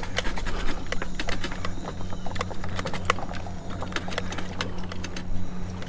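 Lawnmower engine running with a steady low hum, with irregular light clicks and knocks over it.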